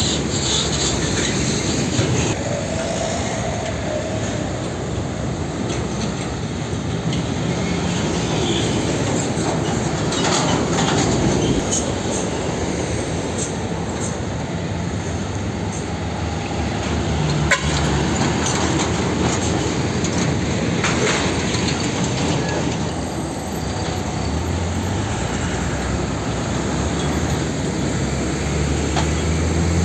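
Diesel container trucks driving close past on the road, engines running under the steady rumble of tyres and traffic. A heavier low engine hum builds near the end as a truck approaches, and there is a single sharp knock a little past halfway.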